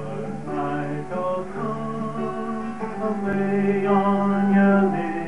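A folk song sung to a strummed acoustic guitar, with the voices holding long notes over the chords.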